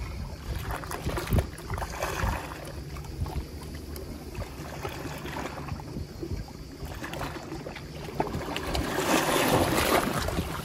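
Small sea waves washing in and splashing through a narrow rocky channel at the water's edge, surging louder near the end. Wind rumbles on the microphone underneath.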